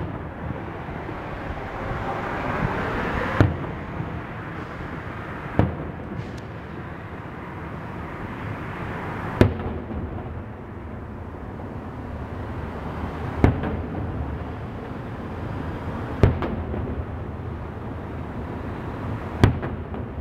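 Aerial fireworks shells bursting: six sharp bangs a few seconds apart, over a steady noisy background.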